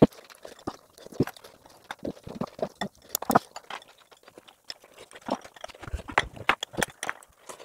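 A person eating with chopsticks, chewing close to the microphone: irregular wet clicks and smacks of the mouth, now and then a sharper tap.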